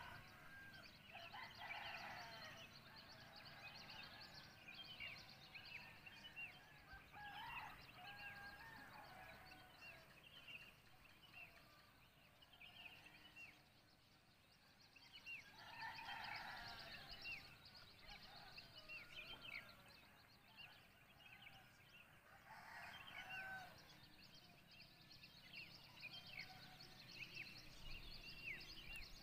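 Faint dawn birdsong, with many short chirps throughout. Distant roosters crow about four times, each crow lasting a second or so.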